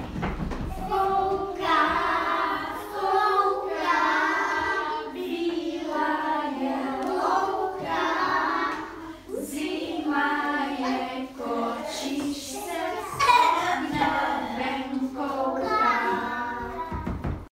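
A group of children's voices singing a song together, in short phrases with brief breaks between them.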